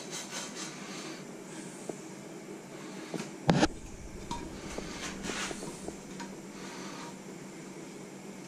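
Burger buns being turned and shifted in frying pans on a gas hob: light knocks and scrapes, and one loud thump about three and a half seconds in, over a steady low hum.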